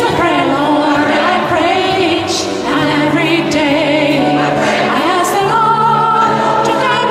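Mixed gospel choir singing in parts, the low voices holding long notes under moving upper lines.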